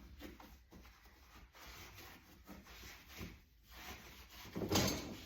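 Scrubbing strokes on the dishwasher's interior, gritty rubbing with baking soda, irregular and fairly quiet, with a louder scrape about three-quarters of the way through.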